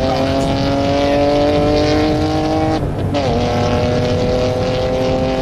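Car engine pulling under acceleration, its pitch climbing steadily, then a short break and a drop in pitch about three seconds in as it shifts up, running on steadily in the next gear. Road and tyre noise underneath, heard from inside the cabin.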